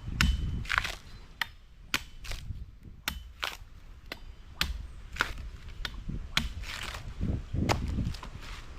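Blade chopping while cutting coconuts: about a dozen sharp chops at uneven intervals, over a low rumble.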